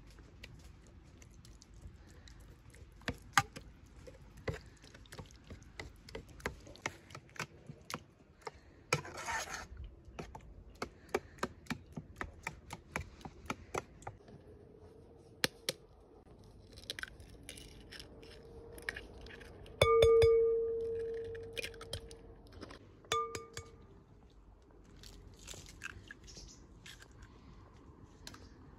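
Metal spoon scraping and tapping against a steel bowl while scooping mashed pumpkin, in quick light clinks. About two-thirds of the way through, a metal vessel is struck and rings with a clear tone that fades over about two seconds, and rings again briefly a few seconds later.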